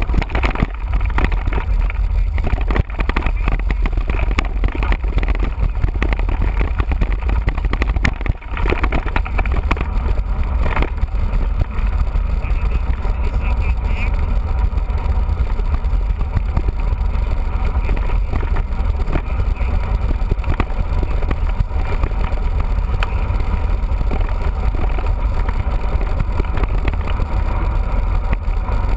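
Steady low rumble of wind buffeting the microphone while a mountain bike is ridden, with trail noise and a few sharp knocks and rattles from the bike.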